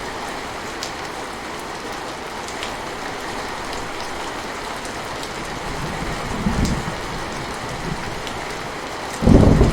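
Steady rain falling, with scattered ticks of individual drops. A short low rumble of thunder comes about two-thirds of the way through, and a louder roll of thunder starts shortly before the end.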